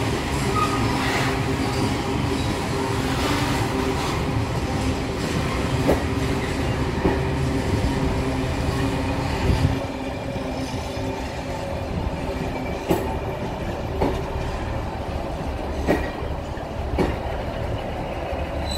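Freight wagons of an engineers' train rolling slowly past: a steady rumble with wheels clacking over rail joints. About halfway through, the rumble drops as the last vehicle passes and the train moves away, leaving a few single clacks.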